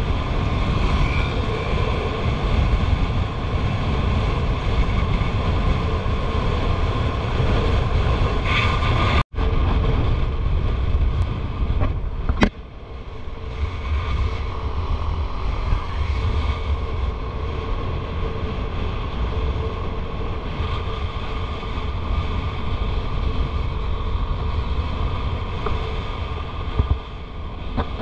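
Motorcycle riding at road speed: wind buffeting the helmet-mounted microphone in a heavy low rumble, with the engine running steadily underneath. The sound cuts out for an instant about nine seconds in, and a click about three seconds later leaves it slightly quieter.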